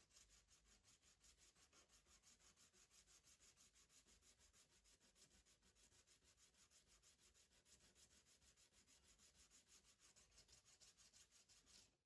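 Hand file rasping back and forth along the edge of a plastic gauge bezel, in quick even strokes about four a second. The sound is faint.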